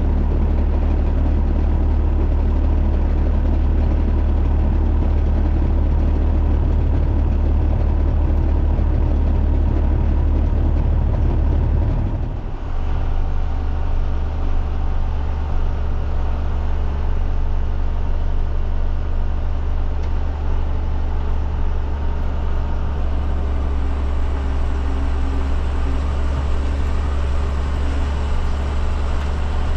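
John Deere 7510 tractor's diesel engine running steadily with a deep drone. About twelve seconds in the sound dips briefly, then carries on with a slightly different tone.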